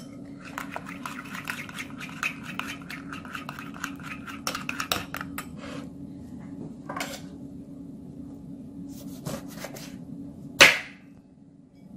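Metal spoon stirring thick shrimp paste in a ceramic bowl: a fast run of clinks and scrapes against the bowl for about five seconds, then a few scattered taps and one louder knock near the end. A steady low hum runs underneath.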